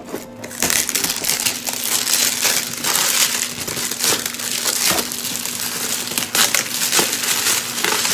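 Clear plastic wrapping being torn and crumpled off a cardboard product box: continuous crinkling and crackling that starts about half a second in.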